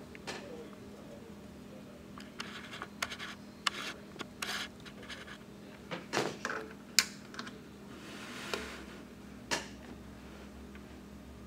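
Scattered clicks, taps and scratchy handling noises as two small projectors are switched on and adjusted, over a faint steady hum. A low hum joins about eight and a half seconds in.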